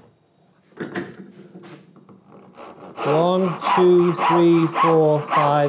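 Western handsaw cutting a pine block with a steady back-and-forth rasp, the strokes growing louder about three seconds in, with a man counting the strokes aloud over them. The saw is a cheap new saw that has just been corrected and now cuts deeper per stroke.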